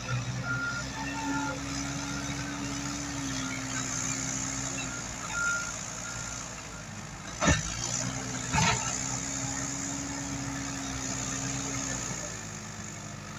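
Komatsu WB93R backhoe loader's diesel engine running and revving up and down in two long swells as it works the hydraulics. Two sharp knocks come a little past the middle, and short high beeps sound near the start and about halfway.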